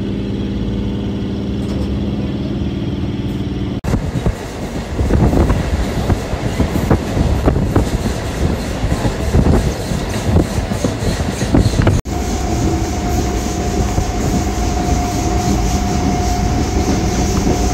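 Train sounds in three short cuts. First a steady engine hum, then the irregular rattling clatter of a moving train, then steady running noise with a high, even whine held over it.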